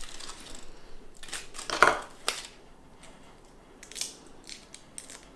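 Aluminium foil crinkling and garlic skins crackling as roasted garlic cloves are pulled from a foil parcel and peeled by hand, in a few short, scattered rustles.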